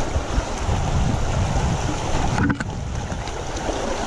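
Rushing whitewater around a kayak running a rapid, with wind buffeting the camera's microphone. The level drops abruptly about two and a half seconds in.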